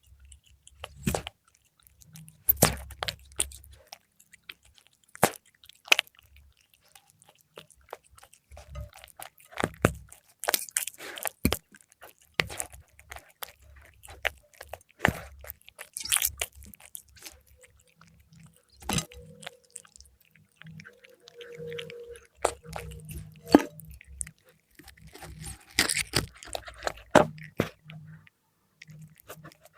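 A cat chewing and crunching fried milkfish: irregular crisp crunches and wet chewing clicks, with a faint brief hum about two-thirds of the way through.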